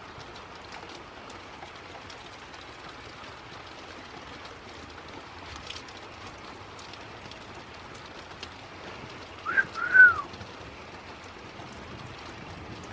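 Rain falling steadily, with faint scattered drip ticks. About nine and a half seconds in comes a short two-note whistle: a quick rising note, then an arched one.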